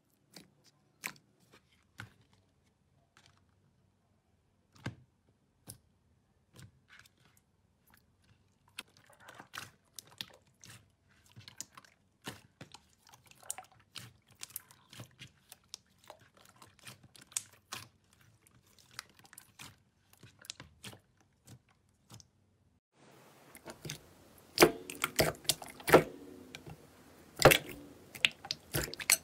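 Hands pressing and poking clear slime, giving sticky clicks and small pops: sparse at first, more frequent from about nine seconds in. Near the end the slime is clear blue slime in a glass bowl, and the pops come louder and closer together.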